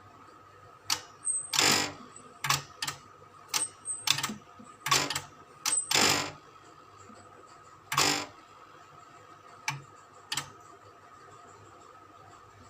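An irregular series of sharp mechanical clicks and clacks, about fifteen in all, some in quick pairs, over a faint steady hum; the clicking stops about two seconds before the end.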